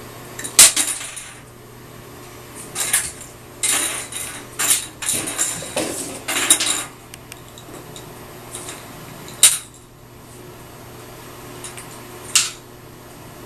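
A small plastic toy batted by a cat, skidding and clattering against the hard bathtub floor and sides: a sharp knock about half a second in, a run of rattling clatters from about three to seven seconds, then two single knocks.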